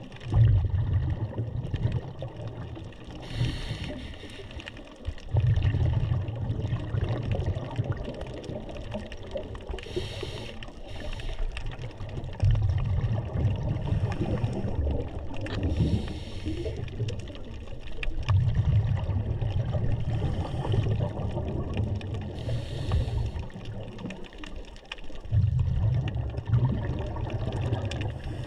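Scuba diver's breathing heard underwater in a slow, regular cycle. A short hiss from the regulator on each inhale alternates with a longer, low bubbling rumble of exhaled air, about every six to seven seconds.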